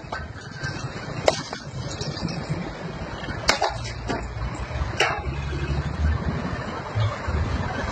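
Low, steady rumble of a moving road vehicle, with three sharp knocks during the first five seconds.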